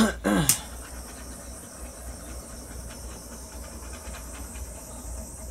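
Handheld torch flame hissing steadily as it is played over a wet acrylic pour.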